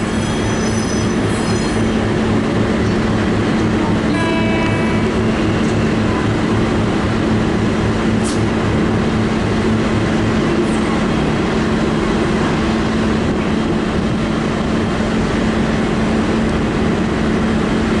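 V/Line N class diesel-electric locomotive's engine idling steadily at a standstill, a loud even rumble with a strong hum. A brief, faint higher tone sounds about four seconds in.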